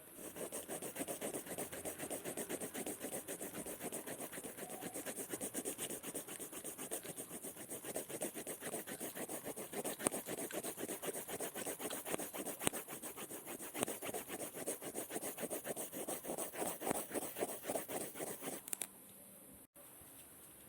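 Scribbling on paper: rapid back-and-forth scratchy strokes of a drawing tool, which stop near the end.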